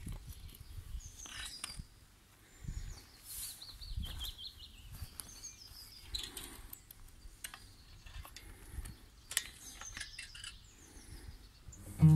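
Songbirds singing in the woods, one with a falling run of quick repeated notes about three seconds in, over the low thuds of footsteps on forest ground and a few sharp clicks.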